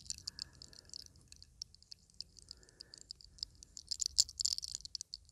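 Close-miked crackling of a lock of hair being rolled between the fingers and tugged in the 'sacar los soles' hair-cracking technique: a dense run of small, sharp crackles, heaviest about four seconds in.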